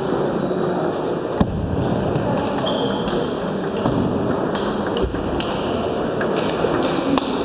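Table tennis balls clicking off bats and tables in irregular strokes from rallies, over a steady hubbub of a busy hall full of play.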